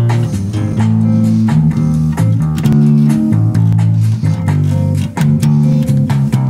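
Bass guitar being played, a melodic line of plucked notes that change pitch every half second or so.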